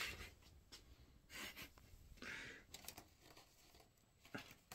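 Near silence, with a few faint rustles and breaths and soft clicks from handling a picture frame on the wall. There is a slightly louder knock near the end.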